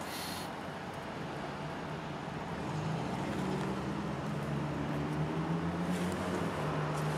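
Steady low vehicle engine hum over a hiss of road noise, growing a little louder about three seconds in.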